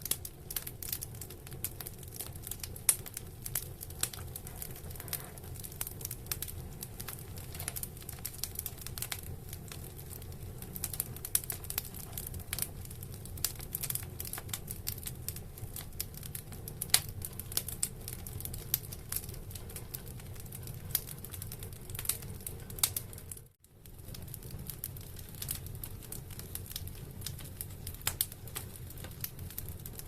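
Wood fire burning in a fireplace, crackling with many small irregular pops over a steady low rumble. The sound cuts out for an instant about three-quarters of the way through.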